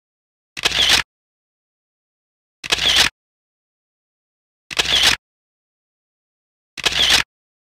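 An edited-in sound effect, the same short burst repeated four times about two seconds apart, with dead silence between.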